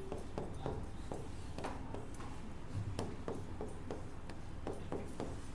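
Writing on a board as an equation is worked out: a run of short taps and scratchy strokes, two or three a second, over a low steady hum.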